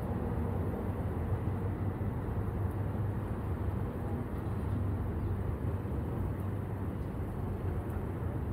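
River ferry's engine running steadily with a low, even hum.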